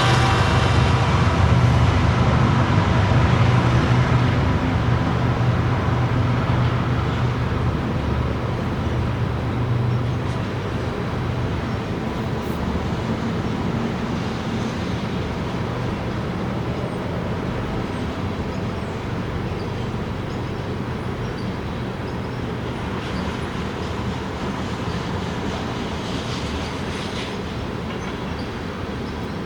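Steady low noise with a hum, slowly fading, after a tone with many overtones dies away in the first second.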